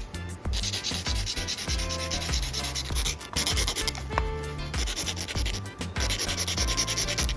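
Abrasive rubbing in long strokes, like sanding, heard as harsh hiss in three stretches of one to two and a half seconds each, over background music.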